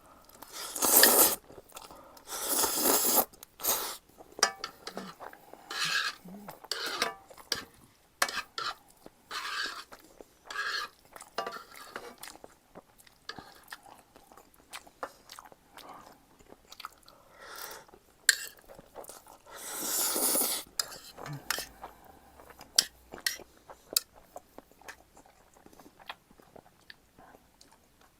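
Close-up eating sounds of a person eating Jjapaghetti noodles with green-onion kimchi: chewing and crunching, utensils clicking against the dish, and a few longer noisy slurps of noodles, the loudest about a second in, at three seconds and at twenty seconds.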